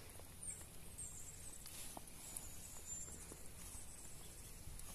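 Quiet outdoor background: a steady low rumble with a few faint clicks and faint, brief high chirps.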